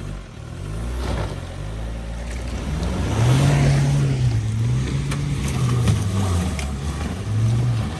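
Off-road 4x4's engine revving up and down several times, its pitch rising and falling, louder from about three seconds in.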